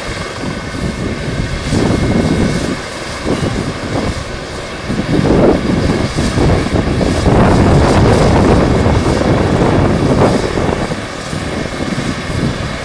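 Police Eurocopter EC135 helicopter running on the ground, its turbines whining steadily and its main rotor turning. The sound swells louder a few times and eases off near the end.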